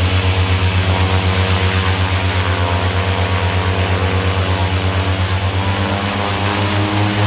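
Small propeller plane's engines running loud and steady with an even throb of about seven pulses a second; the pitch rises slightly near the end.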